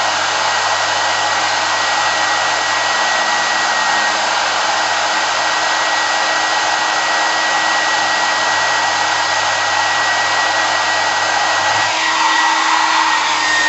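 Nova NHP 8100 1200 W hair dryer running steadily: the rush of blown air with a steady high whine from its motor and fan.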